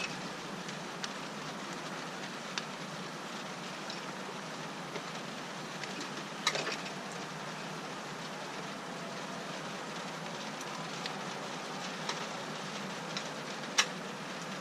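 Steady hiss of falling rain, with a few sharp clicks from parts and tools being handled; the loudest come about halfway through and near the end.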